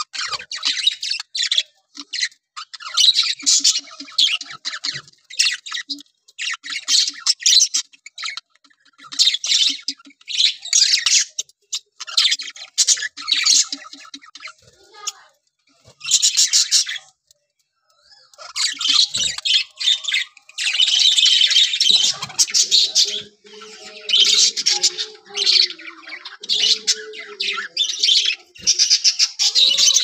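A flock of budgerigars chirping and chattering in quick, dense bursts, with short pauses between.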